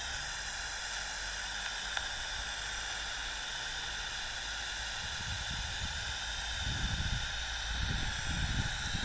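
Steady outdoor background hiss with a faint steady hum. From about five seconds in, irregular low rumbling of wind buffeting the phone microphone comes in and grows.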